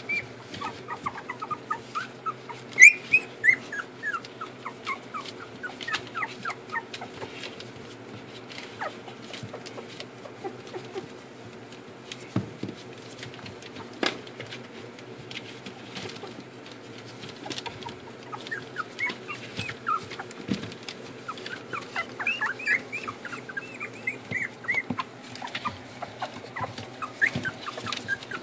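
A litter of puppies, about two and a half weeks old, squeaking and whimpering in many short, high, wavering cries. The cries come thickly in the first few seconds, thin out through the middle and crowd in again in the last ten seconds, with scattered light clicks over a steady low hum.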